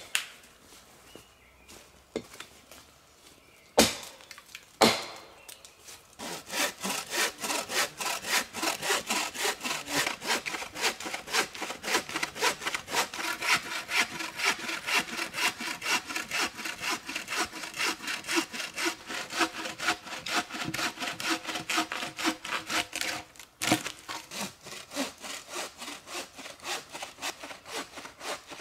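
Hand saw cutting through a log with quick, even back-and-forth strokes, after two sharp knocks about four and five seconds in. Near the end, after a short pause, bow saw strokes through another log carry on.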